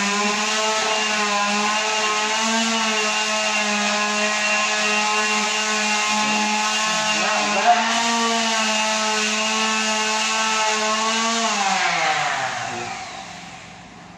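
A high-speed motor running at a steady pitch, then switched off about twelve seconds in and winding down with a falling whine.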